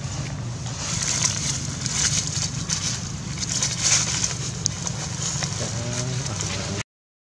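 Dry fallen leaves crackling and rustling as a long-tailed macaque shifts and lies down in the leaf litter, over a steady low rumble. The sound cuts out abruptly just before the end.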